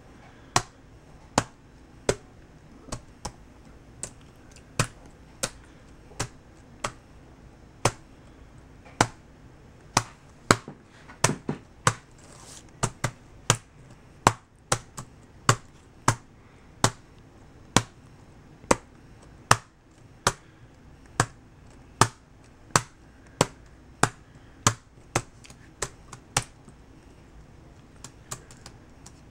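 Black-capped capuchin monkey pressing keys on a MacBook Pro laptop keyboard: single sharp key clicks at an uneven pace, about one to two a second, a few fainter and quicker ones near the end.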